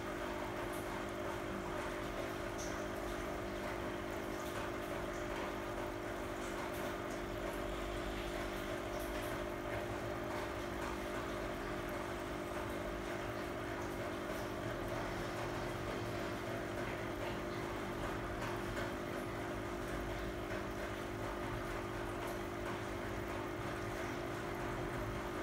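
Aquarium aeration running in a small fishbowl: a steady electric hum from the pump with water bubbling and faint bubble pops.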